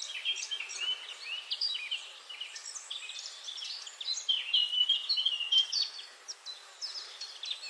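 Several songbirds chirping and trilling at once, a dense overlapping chorus of short high calls over a faint steady hiss.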